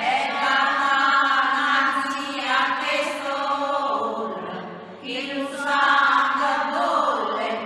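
Choral chant: several voices singing long, held notes together in slow phrases, one phrase fading out about five seconds in and the next beginning.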